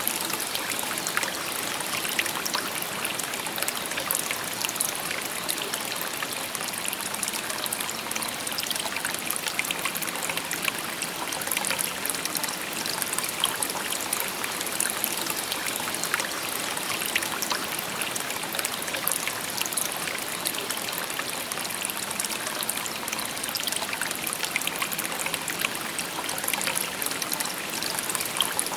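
A shallow stream babbling and trickling over stones, a steady rush of water with many small splashes.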